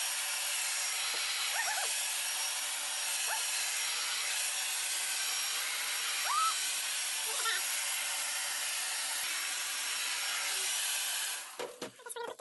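Handheld hair dryer blowing steadily while heat-shrinking a plastic wrap bag over a gift basket. It is switched off near the end.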